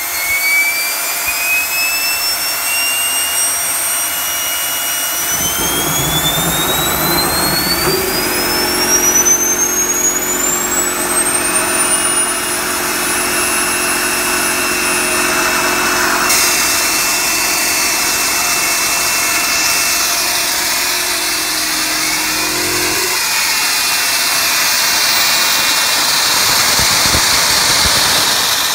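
Homemade turbojet engine built from a turbocharger, running loud. Its turbine whine rises steadily in pitch as it spools up over a rushing hiss, then about halfway through gives way to a steady loud rush, with a low hum underneath until near the end.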